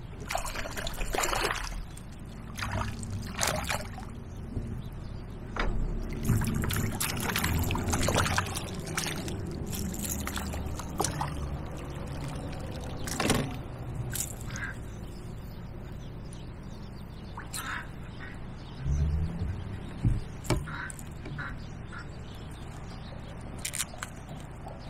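Water splashing and dripping as a small smallmouth bass is played beside a kayak and lifted in a landing net, with a few sharp knocks from handling the net and gear.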